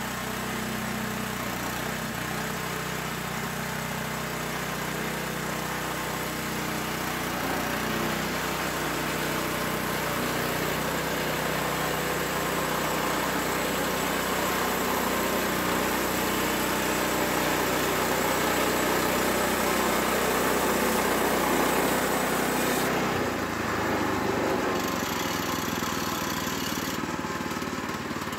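Woodland Mills 122 portable bandsaw mill running steadily, its gas engine under a dense saw noise as the band blade cuts through a pine log. The sound changes abruptly about three-quarters of the way through.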